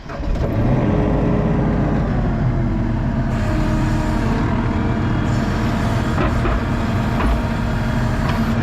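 ASV RT40 skid steer's diesel engine starting up and running steadily, with the newly coupled grapple hydraulic hoses under pressure while they are checked for leaks.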